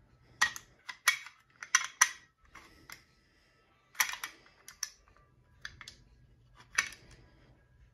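A string of sharp metallic clicks and clacks, irregularly spaced and loudest in the first two seconds. They come from the steel bolt and action slide of a Smith & Wesson 916A 12-gauge pump shotgun being worked loose inside the receiver with a long screwdriver during field stripping.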